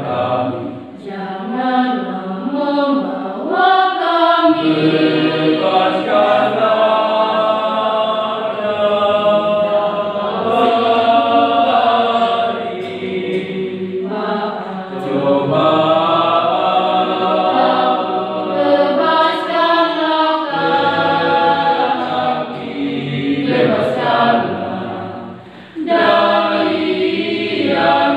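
Youth church choir singing a hymn a cappella, phrase after phrase with short breaks between them.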